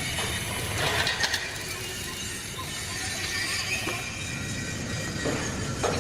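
Metal fabrication workshop noise: a steady mechanical din with a few sharp metallic clanks, a cluster about a second in and more near the end.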